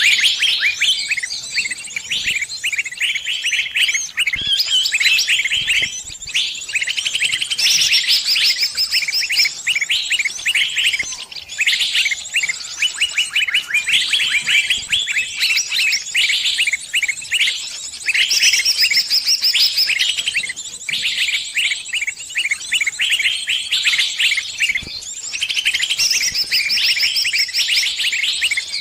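Sunbirds (called kolibri in Indonesia) twittering without a break in rapid, high chirps and trills.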